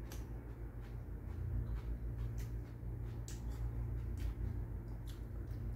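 Someone chewing grapes: a few soft, scattered mouth clicks and smacks over a steady low hum.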